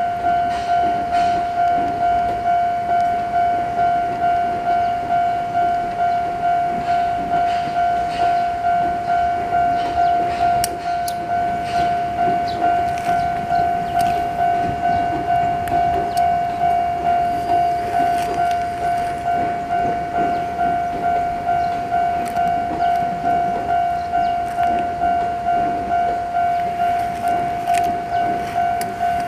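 A railway level-crossing warning bell ringing steadily, about one and a half strikes a second, as a towed Tobu electric train set rolls past with a low rumble of wheels on rail and a few sharp wheel clicks about ten seconds in.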